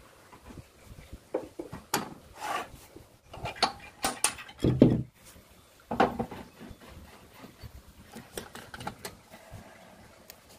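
Irregular knocks, clicks and short scrapes of wooden pieces and tools being handled, with one heavier thump just before the five-second mark; no lathe motor running.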